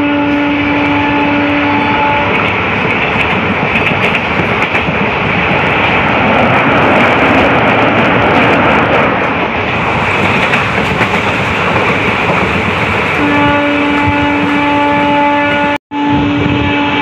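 Passenger train running at speed, heard from a carriage window: wheels rumbling and clattering on the rails, louder in the middle while crossing a canal bridge. The train's horn sounds one steady tone for about two seconds at the start and again for several seconds near the end, approaching a level crossing, with a momentary dropout in the sound just before the end.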